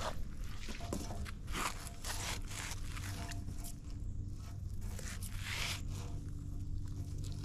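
Magnet-fishing rope being hauled in hand over hand, scraping across rubber gloves and the bridge's edge in a run of short, irregular rasps.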